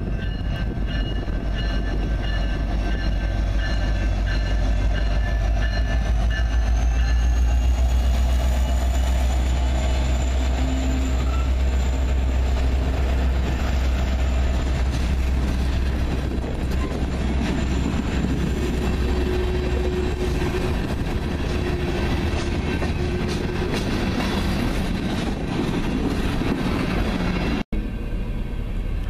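BNSF SD70ACe diesel-electric locomotive rumbling slowly past, followed by coal hopper cars rolling by with wheels clattering on the rails. A grade-crossing bell rings through the first several seconds. The sound drops out for a moment near the end.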